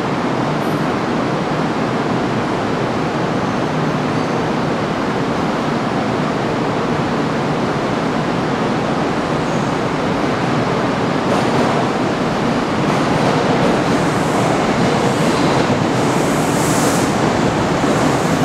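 Kintetsu commuter train arriving, rolling slowly over the station's points and along the platform: a steady rumble of wheels on rails that grows louder, with more hiss, after about eleven seconds as the cars come past.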